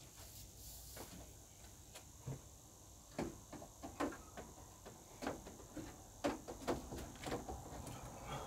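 Irregular light knocks and clicks from handling a light fixture as it is fitted back into its place, a few faint ones at first and then about two a second from about three seconds in.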